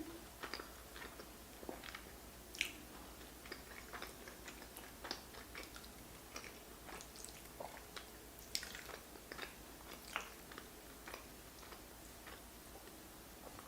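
Close-miked eating of creamy fettuccine Alfredo with king crab: quiet, irregular wet chewing smacks and small mouth clicks.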